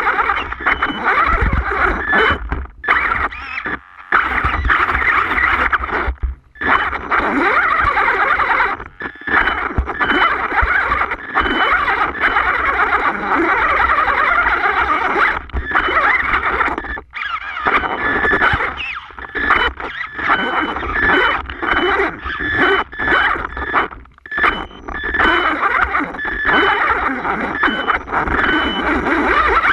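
An HPI Savage Flux RC monster truck's brushless electric drivetrain whining and buzzing under throttle as it crawls over rocks. The sound drops away briefly every few seconds and picks up again.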